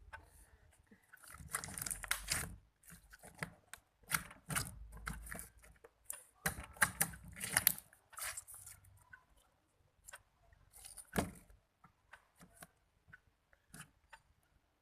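Clear slime being squeezed, stretched and pressed by hand, giving bursts of sticky crackling and popping clicks, loudest in four bouts spread through the stretch.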